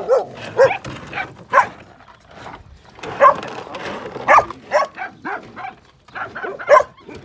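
Dogs barking and yelping: a string of about a dozen short calls at irregular intervals, some bending in pitch like whimpers.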